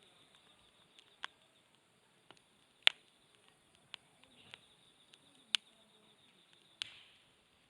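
Wood campfire crackling: irregular sharp pops and snaps, the loudest about three seconds in and another about five and a half seconds in.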